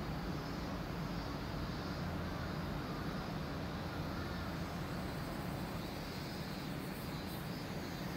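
Steady low rumble of outdoor town ambience over a hillside station, with no distinct events.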